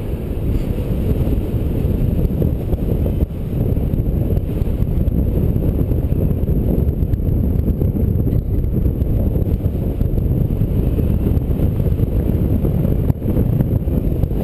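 Wind rushing over the microphone of a camera on a paraglider in flight: a loud, steady, low rumble with brief lulls about three seconds in and near the end.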